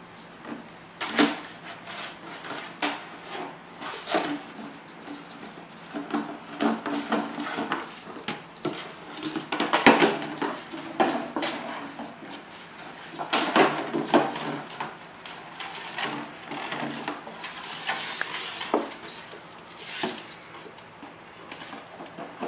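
Empty plastic gallon jug being pushed, mouthed and batted across a hard floor by a puppy: irregular knocks, taps and scrapes of plastic, with louder clatters about ten and fourteen seconds in.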